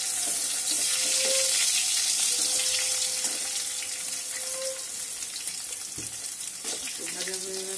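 Hot oil sizzling loudly in a metal wok around frying potato pieces just after crushed garlic goes in, with a metal spatula stirring and scraping against the pan. The sizzle is strongest over the first few seconds, then eases off.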